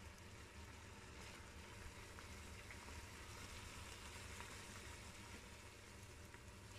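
Faint sizzling of food in a hot pot as the smoked pork and jackfruit mixture is added, with a few light clicks.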